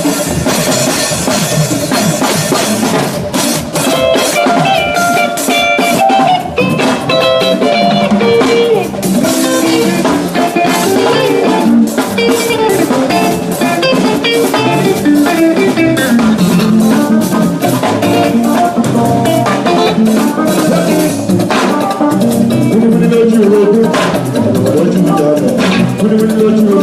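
Instrumental music: guitar melody lines over a drum kit, with no singing.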